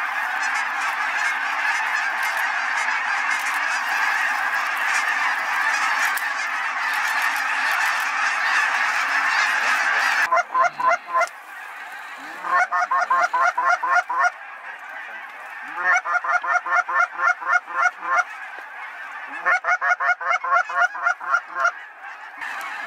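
A huge flock of snow geese calling overhead, a dense, continuous din of honking. About ten seconds in the din drops away to a thinner background, broken by four runs of rapid, evenly repeated honks.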